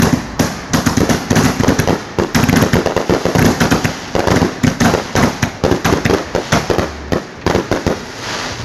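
A finale barrage of aerial firework display shells launching and bursting close overhead, a rapid, continuous string of bangs and crackling that thins slightly near the end.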